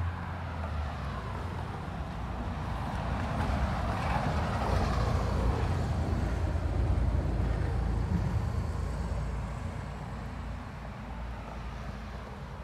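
Street traffic noise: a vehicle going by, swelling over several seconds and then fading, over a steady low rumble.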